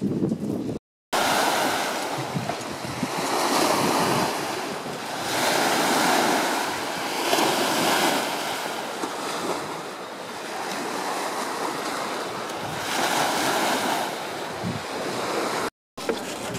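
Small Baltic Sea waves breaking and washing up on a sandy beach, swelling and fading every two seconds or so.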